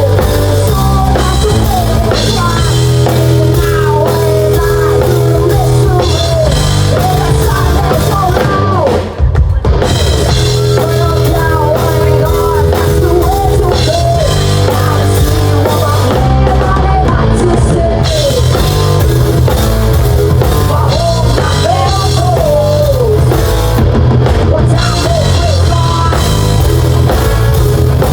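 Live band playing loud through a stage PA during a sound check: a drum kit and bass, with a woman singing over them. The music breaks off briefly about nine seconds in.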